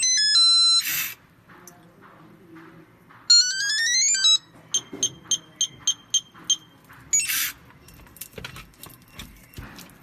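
Douwin FA822SD fingerprint lock's electronic tones: a stepped chime at the start, a rising chime about three seconds in, then a run of about eight short keypad beeps, roughly three a second. Two short bursts of hiss and a few light taps on the keypad come between them.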